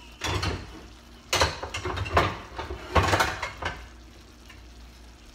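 Pots and pans clattering and knocking as a low kitchen cabinet is rummaged through: a short rattle, then two longer bursts of clatter that die away about four seconds in.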